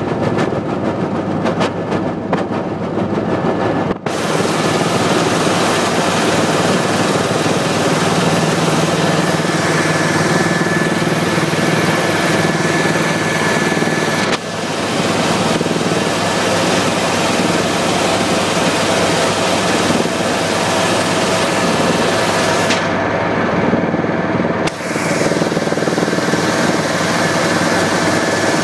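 Helicopter cabin noise in flight: a loud, steady engine and rotor drone with a constant high whine. It dips briefly three times.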